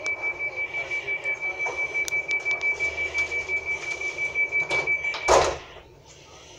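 Passenger train's door-closing warning: a rapid high-pitched beeping, about six beeps a second, then the sliding doors shut with a loud thud about five seconds in.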